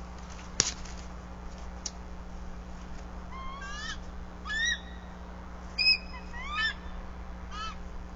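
Bald eagles calling at the nest: a series of high, chittering notes in short bursts from about three seconds in, each note rising then dropping. Before that, about half a second in, comes a single sharp click.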